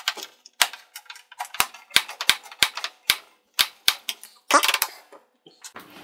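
A screwdriver backing screws out of the plastic rear cover of an HP Pavilion 23 all-in-one PC makes a series of sharp, irregular clicks, roughly two a second, with a short cluster of clicks about four and a half seconds in.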